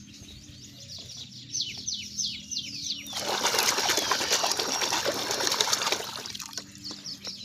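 Rapid high chirping of birds, quick falling notes, then about three seconds of loud rushing noise starting about three seconds in before the chirping returns faintly.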